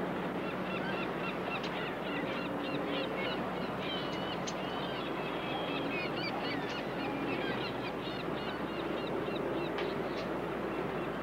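Birds chirping and calling over a steady background hiss, with a few short low honking calls among the chirps.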